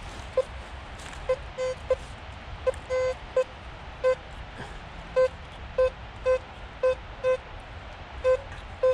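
Metal detector beeping as its search coil is swept over leaf litter: a string of short, same-pitched beeps coming irregularly, about two a second, a few held a little longer, each one the detector signalling buried metal under the coil.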